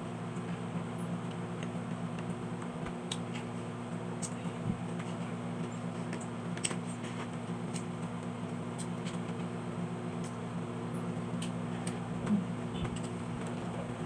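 Someone eating, with faint scattered clicks and small handling noises from the food and its wrapping over a steady low hum.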